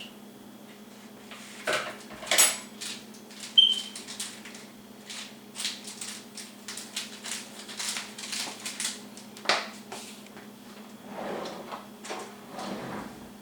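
Utensil clinking, knocking and scraping against a stainless steel cooking pot, with one short metallic ring among the knocks, over a steady low hum.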